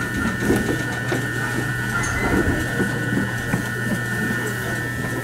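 Steady hum and a thin high whine from a stopped electric train's equipment, with faint voices of people talking in the background.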